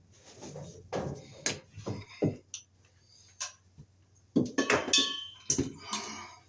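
Handling noise from working an old work box and cable: scattered clicks, knocks and rustles, with a cluster of louder sharp clinks and a brief ringing about four and a half seconds in.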